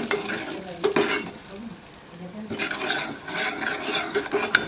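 Long metal ladle stirring thick herb soup in an aluminium pot, scraping and clinking against the pot, with a sharper knock about a second in and another near the end.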